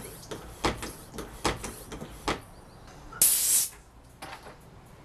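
Foot pump inflating a tricycle tyre: a run of irregular knocks and clicks as the pump is stepped on, then a short, loud hiss of air about three seconds in.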